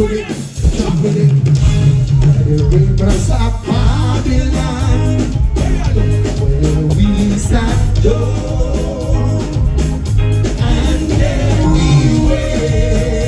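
Live band music with a steady bass pulse and a voice singing over it, loud.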